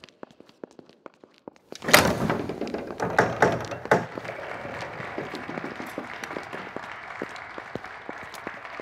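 Footsteps click faintly, then about two seconds in a door bangs open and the steady noise of a crowd in a hall comes in, with a few more knocks just after.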